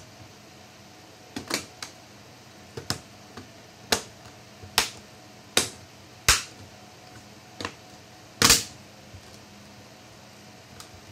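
Irregular sharp clicks and knocks of hard laptop parts and tools being handled and set down during disassembly, about a dozen in all, with the loudest knock near the end.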